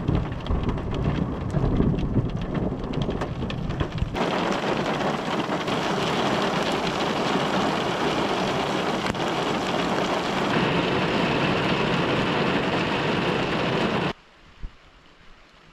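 A thunderstorm: thunder rumbles low under falling rain for the first four seconds, then a heavy downpour of rain goes on steady and loud. Near the end the rain sound cuts off suddenly to a much quieter background.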